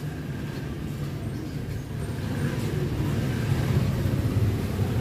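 Engine of a nearby motor vehicle running, a steady low rumble that grows louder from about two seconds in.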